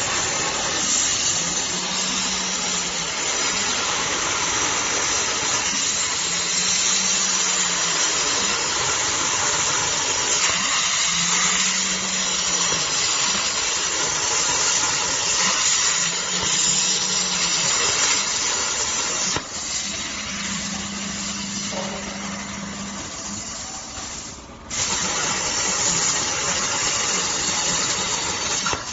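CNC plasma torch cutting steel square tube: a loud, steady hiss of the plasma arc and gas jet. Under it a low machine hum comes and goes every four to five seconds. The hiss cuts out briefly near the end and then starts again.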